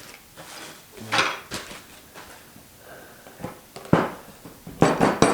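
Knocks and clacks of a bandsaw fence rail and its fasteners being handled and taken off. There are a handful of sharp, irregular hits, the sharpest about four seconds in and several close together near the end.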